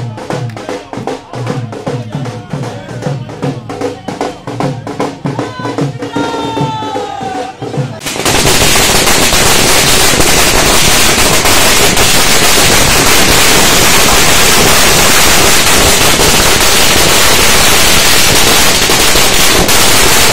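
Drums and music with crowd voices, then, about eight seconds in, a long string of firecrackers goes off in one loud, unbroken rapid crackle of bangs.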